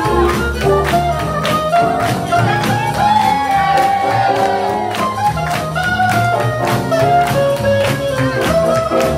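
Swing jazz music with horns and a steady beat, about two beats a second.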